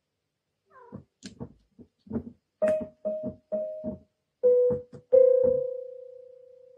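Electronic keyboard pressed by a cat's paw: a halting run of short, uneven notes with key knocks, starting about a second in. It ends on one louder note, held and slowly fading.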